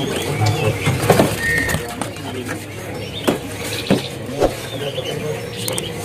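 Bird-market background: a steady low hum with distant voices, a few short bird chirps, and about six sharp clicks and knocks scattered through it.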